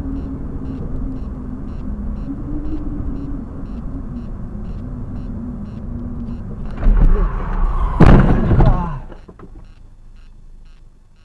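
Car engine and road noise heard from inside the car. About seven seconds in comes a heavy jolt, and about a second later a loud crash with ringing, a car collision. After it the sound falls to a low hum.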